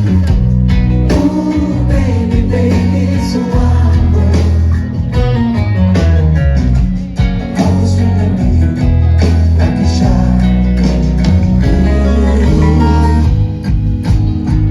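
Live song performance: a singer over strummed guitar and bass guitar, played at a steady, full level.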